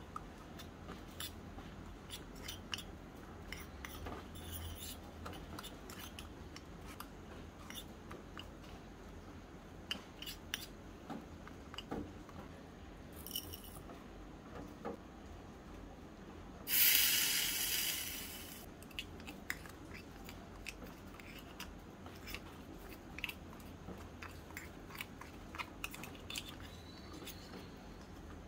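Small metal spoons clicking and scraping against a miniature steel pan while stirring grated coconut, in light, irregular taps. About halfway through, a loud burst of hiss starts suddenly and fades over about two seconds.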